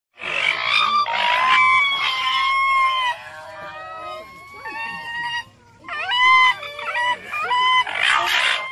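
Raccoon dog (Nyctereutes procyonoides) calling: a run of high, wavering whines, with harsher, rasping cries at the start and again near the end.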